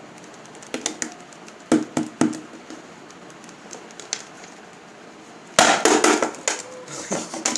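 Small hard objects being handled: a few separate clicks and knocks, then a quick run of clattering in the last two seconds.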